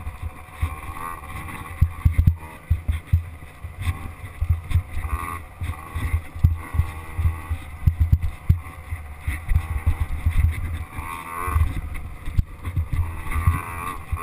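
Small dirt bike engine revving up and down over and over as it is ridden along a bumpy dirt trail, heard from a camera mounted on the bike. Frequent short low thumps and rattles come from the bike jolting over the ruts.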